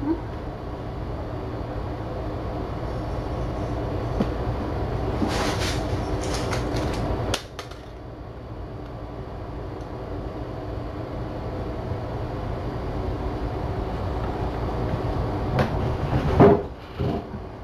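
Steady low background rumble, with a burst of crinkly rattling about five to seven seconds in as a crinkle ball toy lands and rolls on the floor. A few soft knocks come near the end.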